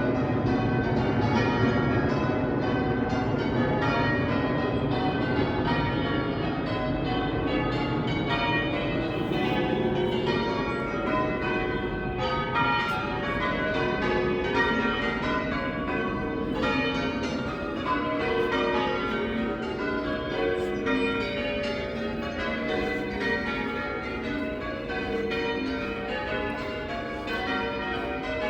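A ring of eight church bells, most cast in 1694 by Philip Wightman, being rung full circle, the bells striking one after another in a rapid, even sequence with a shrill, dry tone. A low rumble lies under the ringing for the first third and then dies away.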